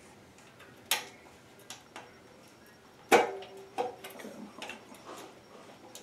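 Sharp clicks and light knocks from a Harbor Breeze ceiling fan's canopy cover as it is fitted up against the ceiling and its screws are done up by hand; the loudest knock, about three seconds in, rings briefly.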